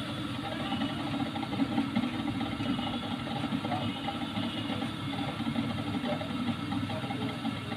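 Motorized potter's wheel running steadily at throwing speed, a constant mechanical hum.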